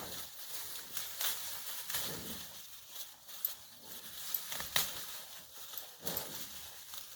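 A cow browsing on wild tree branches: irregular rustling of leaves and sharp crackles and snaps of twigs as it tears and chews.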